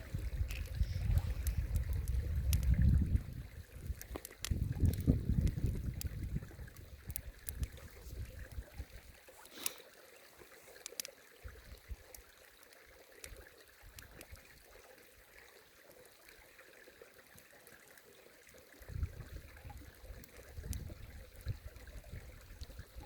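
Campfire crackling and popping in sharp irregular snaps over a faint hiss. Wind buffets the microphone in low rumbling gusts through the first several seconds and again near the end.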